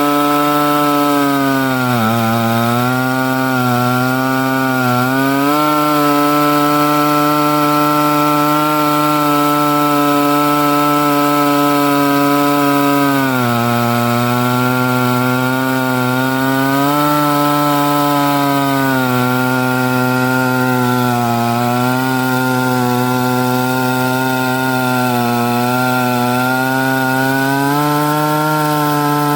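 Two-stroke chainsaw in an Alaskan chainsaw mill running at full throttle while ripping a log lengthwise into planks. Its pitch sags and recovers several times as the chain loads up in the cut.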